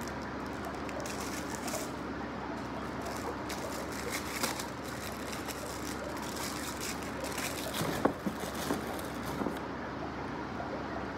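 Clear plastic packaging crinkling and rustling as hands open and handle a small wrapped item, with scattered clicks and a sharper crackle about eight seconds in, over a steady background hum.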